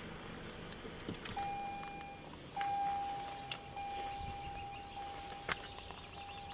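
Car's electronic warning tone: a steady high beep that starts about a second and a half in and keeps on with brief breaks. A couple of sharp clicks sound alongside it.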